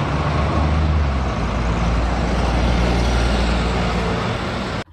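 Double-decker bus engine running on a street, a steady low hum under traffic noise, cutting off suddenly near the end.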